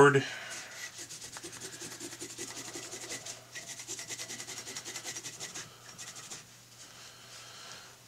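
Alcohol-dampened paper towel rubbed over the contacts of a circuit board in quick repeated strokes, cleaning residue off the board. The rubbing stops about six seconds in.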